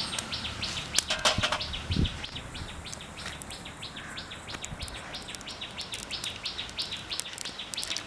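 A bird chirping rapidly and evenly, about five short calls a second, with a few sharp crackles about a second in from mustard seeds spluttering in hot oil.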